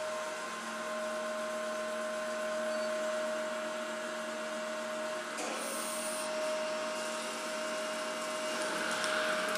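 Jones & Shipman universal cylindrical grinder running, a steady machine hum with a constant whine from the spinning wheel head and drive. Near the end the hiss and splash of coolant flow onto the wheel and work joins in.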